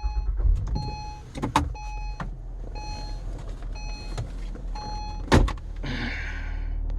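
A 2012 Acura TL SH-AWD's 3.7-litre V6 starting and settling to a steady idle. Over it a dashboard warning chime repeats about once a second, and there are two sharp clicks. A rush of air noise comes in near the end.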